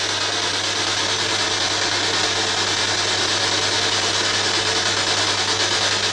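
Ghost box (spirit box) sweeping through radio frequencies: a steady hiss of static with a low hum beneath it.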